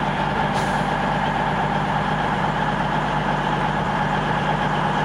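Class 221 Super Voyager diesel multiple unit standing with its underfloor diesel engine idling: a steady low hum with a constant higher whine over it.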